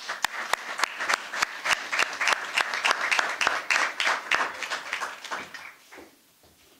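Small audience applauding, with one person's claps close and loud at a steady pace of about three a second over the rest. The applause dies away about five to six seconds in.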